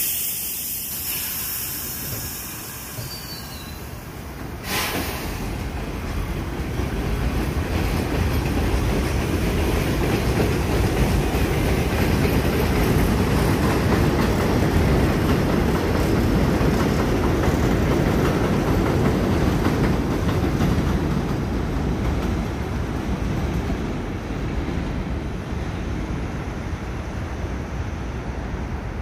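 R62A subway train running past on the elevated steel structure, its rumble and wheel clatter building to a peak midway and then easing off. A single sharp bang about five seconds in.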